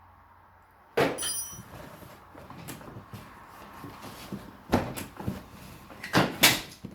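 Plastic battery cover on a Kymco MXU550i ATV being unclipped and pushed off: a sharp plastic snap about a second in, then handling rustle, with a few more clicks and knocks near the end.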